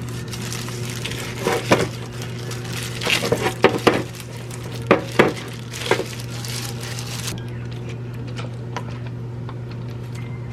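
Dishes and cutlery clinking and knocking, a handful of sharp strikes between about one and a half and six seconds in, over a steady low hum.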